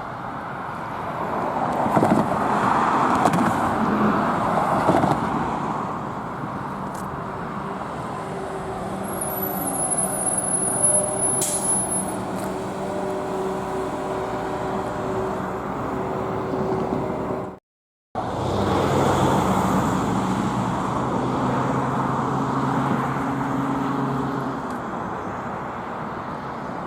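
Car driving along, steady engine and tyre noise with a louder stretch early on, cut by a brief dropout to silence about two-thirds of the way through.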